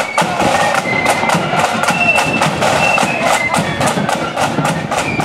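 Marching flute band playing a tune: high flutes in unison over snare drums and a bass drum beating a steady march rhythm.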